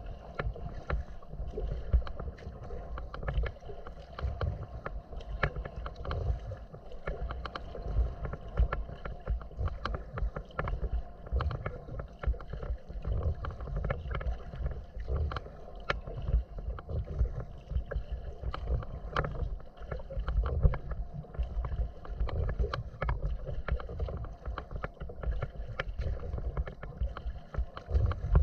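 Wind buffeting the microphone of a deck-mounted camera on a moving kayak, as a steady low rumble, with small choppy waves slapping and splashing irregularly against the hull.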